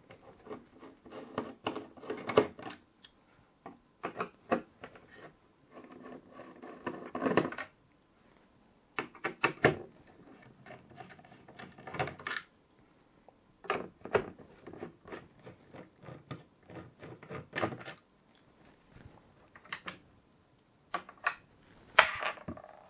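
A Phillips screwdriver unscrewing the screws that hold a motherboard's plastic AM4 retention clips, with clicks and light rattles of the small screws and plastic parts being handled and set down. The sounds come in short bursts with brief pauses between them.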